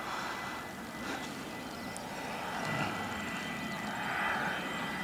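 Cessna 510 Citation Mustang's twin Pratt & Whitney PW615F turbofans heard from a distance on landing approach: a steady jet rush with a thin, high whine.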